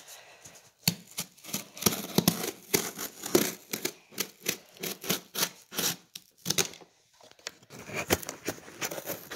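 Scissors cutting through packing tape along a cardboard box's seam: a quick, irregular run of sharp scrapes and snips, with tape and cardboard tearing. It pauses briefly about seven seconds in, then goes on.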